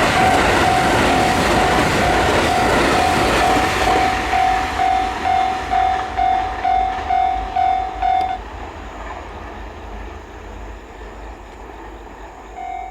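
A train passing over a level crossing, its rushing rumble fading away over the first few seconds, while the crossing's warning bell rings about twice a second. The bell stops about eight seconds in, and near the end it starts ringing again.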